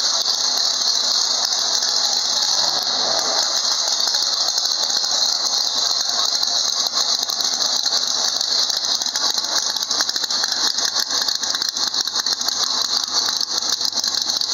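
Drag-race Pontiac Firebird Trans Am's engine running, a loud steady noise with a rattling pulse that grows more marked about halfway through.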